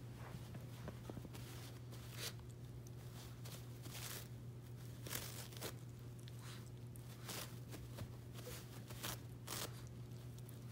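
Shih Tzu chewing and tearing paper towels: irregular soft crinkles and rips of paper, with a steady low hum underneath.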